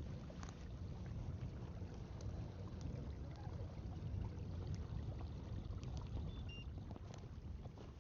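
Kayak out on the water: a low steady rumble with scattered light clicks and taps. A few short high chirps come about six and a half seconds in.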